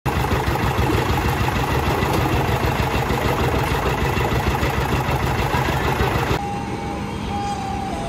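Concrete mixer's engine running steadily and loudly. About six seconds in it cuts off abruptly and soft background music with held tones takes over.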